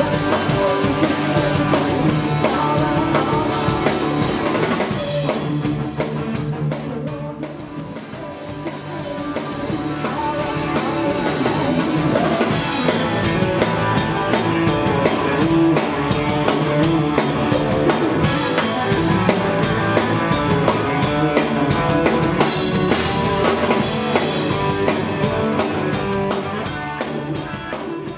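Live rock band playing on drum kit, electric guitars and bass. About five seconds in the music thins out and drops in level for a few seconds. About twelve seconds in the full kit comes back in with steady cymbal strokes.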